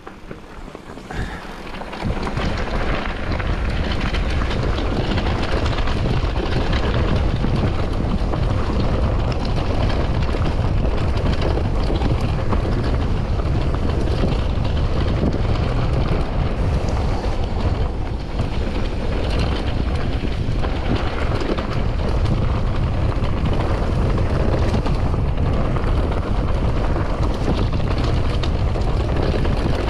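Wind buffeting the microphone, mixed with the rolling noise of a mountain bike riding fast downhill. It picks up sharply about two seconds in and then stays loud and steady.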